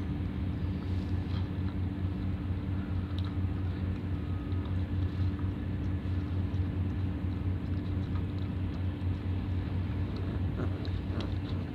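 A steady low hum from a running machine, unchanging throughout, with a few faint clicks.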